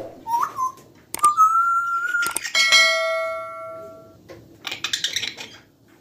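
African grey parrots whistling: a short rising whistle, then a held whistle lasting about a second, then a bell-like ringing tone that fades over about a second and a half, followed by brief rough, scratchy calls.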